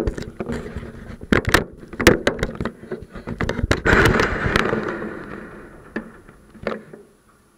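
Handling noise from an action camera being fixed in place: fingers knocking, clicking and rubbing on the camera housing. There is a run of sharp clicks, a longer scraping rub about four seconds in, and the sound dies away near the end once the camera is set.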